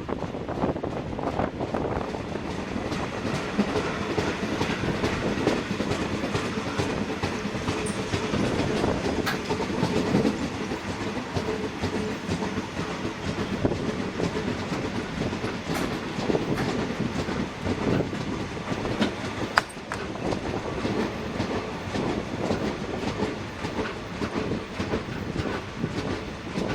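Goods train hauled by a South African Railways Class 24 steam locomotive rolling along the track, its wheels clattering over the rail joints with a steady clickety-clack. A few sharp metallic clicks stand out in the middle stretch.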